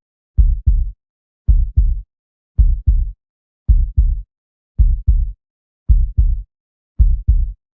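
A heartbeat thumping in a slow, even lub-dub rhythm: paired low beats about a third of a second apart, repeating a little slower than once a second.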